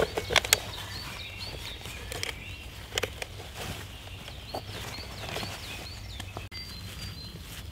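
Rustling and short knocks of gear being handled and packed into a canvas backpack, with feet shifting on dry leaves. Small birds chirp repeatedly in the background.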